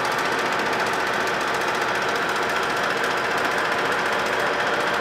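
Fly cutter on a horizontal boring mill cutting across a cast iron drill press table: a steady, rapid chatter of the single tool biting the iron, with the mill's drive tone running under it.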